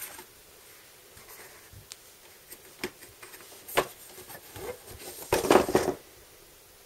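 Cardboard board-game box being opened: a few light clicks and knocks, then the lid rubbing and scraping against the box base as it comes off, the loudest scrape about five seconds in.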